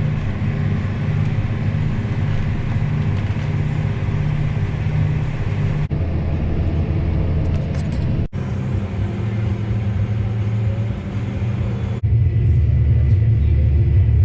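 Heavy farm machinery engine running with a steady low drone. The sound changes abruptly three times, at about six, eight and twelve seconds in, each time to a different engine tone.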